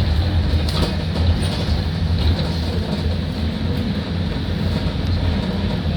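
Cabin noise inside a moving Fiat Ducato minibus: a steady low engine and road drone with hiss, and a few light clicks or rattles.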